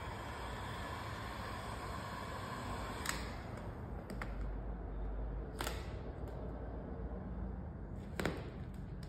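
Handheld electric heat gun running with a steady whine as it warms vinyl wrap film, then switched off with a click about three seconds in. A few more sharp clicks follow.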